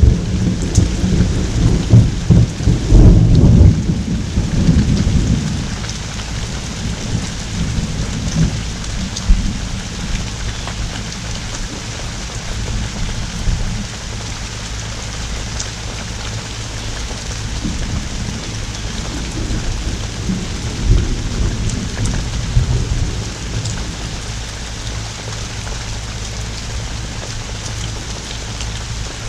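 Thunderstorm: steady pouring rain, with a loud roll of thunder over the first few seconds that fades away, and a weaker rumble of thunder about two-thirds of the way through.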